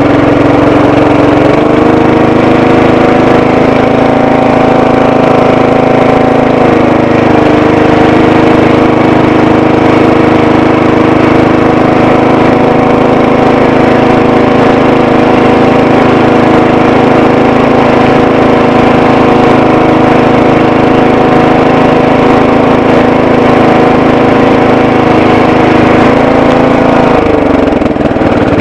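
12 hp Bolens lawn tractor engine running steadily, loud and close. Its pitch rises slightly about a second and a half in and drops off near the end as the engine slows.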